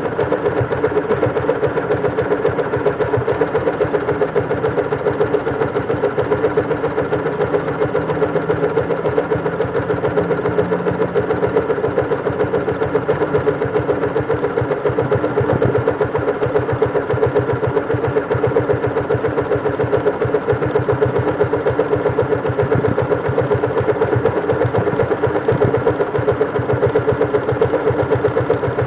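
Yamaha Jupiter MX motorcycle's single-cylinder four-stroke engine idling steadily, treated with XADO revitalizant additive.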